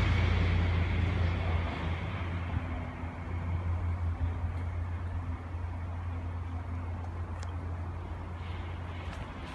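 A car driving, its low engine hum steady while the overall sound fades over the first few seconds. A couple of faint clicks come near the end.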